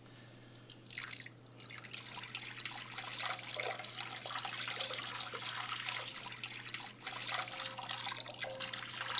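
Water poured from a glass pitcher into a bowl: a short splash about a second in, then a steady stream splashing into the water already in the bowl.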